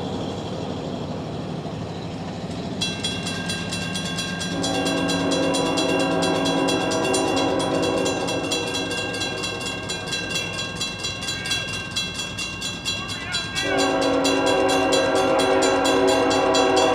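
Mechanical railroad crossing bells start ringing rapidly about three seconds in as the crossing activates. Over them a freight locomotive's horn sounds two long blasts, one from about four seconds in and another near the end, with a low engine rumble underneath.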